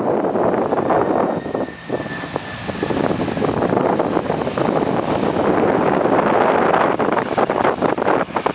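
Boeing 767-200 airliner touching down on a wet runway and rolling out: a steady rush of jet engine noise mixed with spray from the wheels. A faint falling whine comes in about a second in, and the rush swells in the second half.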